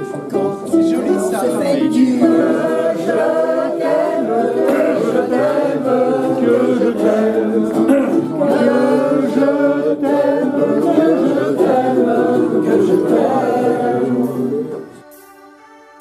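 A group of older people singing a song together, with a ukulele strumming along. About a second before the end the singing cuts off and quiet instrumental music takes over.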